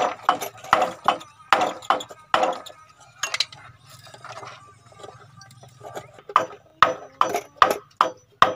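Claw hammer driving nails into a wooden board, a run of ringing strikes, a pause in the middle, then about six more strikes near the end.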